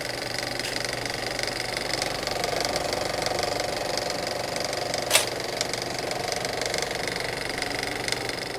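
Film projector running: a steady, fast mechanical clatter over a low hum, with one sharp click about five seconds in.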